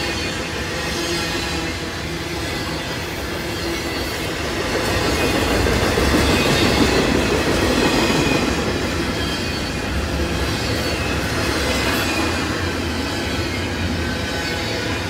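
Double-stack intermodal freight cars rolling past: steel wheels rumbling and clattering on the rails, with steady squealing tones from the wheels. The passing grows louder for a few seconds midway.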